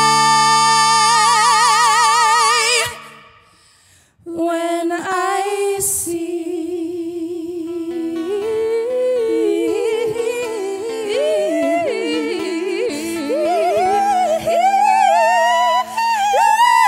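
Two women singing in harmony with an acoustic guitar. A long held note with vibrato cuts off about three seconds in. After a brief pause the voices come back without clear words, sliding and climbing higher toward the end over sustained guitar chords.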